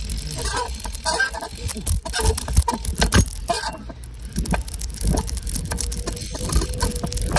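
Bicycle being ridden, its parts rattling with many quick clicks and knocks over a steady low rumble.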